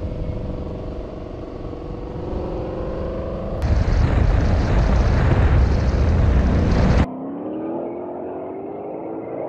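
2020 Ford Mustang Shelby GT500's supercharged 5.2-litre V8 running on track, its exhaust note rising slowly in pitch. About three and a half seconds in, the sound jumps to a louder, noisier stretch. It drops back abruptly about seven seconds in, to the engine note climbing in pitch again as the car accelerates.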